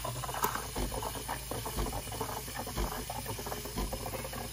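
Espresso machine steam wand, with its frothing attachment set to Cappuccino, hissing steadily into milk in a glass, with small irregular crackles and gurgles as the milk froths and heats up.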